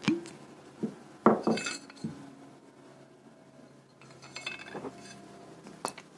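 A small glass bottle being handled makes a few sharp clinks and knocks, the loudest about a second in. Later comes a patch of light crackling as something is crumbled between the fingers over a cauldron, then one more clink near the end.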